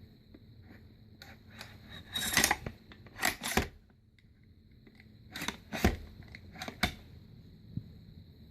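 FN SCAR 16S rifle's charging handle being worked: metallic sliding and clicking in two rounds of strokes a few seconds apart, with the squeaking the owner calls strange.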